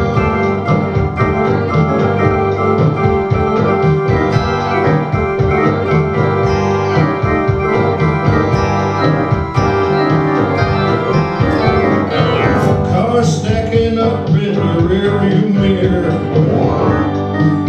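Casio electronic keyboard playing sustained organ-like chords over a steady clicking beat. From about twelve seconds in, a voice sings or wails into a microphone in sliding pitches over the keyboard.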